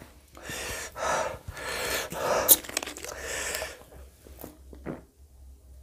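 A man panting, with hard hissing breaths through the mouth from the burn of eating very hot green chillies; after about three and a half seconds the breathing dies down to quiet small sounds as he drinks from a plastic bottle.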